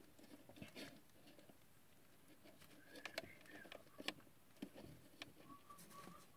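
Faint clicks and rustling as a string of Christmas light bulbs is handled and draped over a large plastic action figure's head, the plastic bulbs and wire tapping against the figure and its tinsel.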